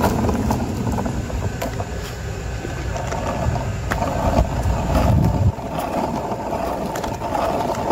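Longboard wheels rolling on an asphalt path: a steady rumble with scattered clicks and ticks. The deepest part of the rumble drops away about five and a half seconds in.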